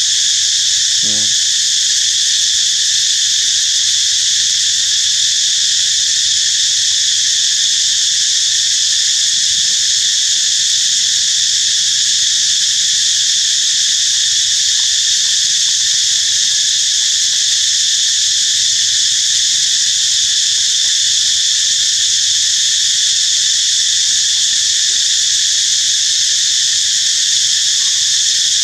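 Loud, steady chorus of insects: a continuous high-pitched drone that holds without pause or change.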